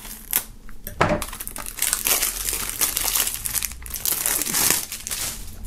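Plastic shrink-wrap film crinkling as it is slit and peeled off a CD jewel case, with a couple of sharp clicks about a second in.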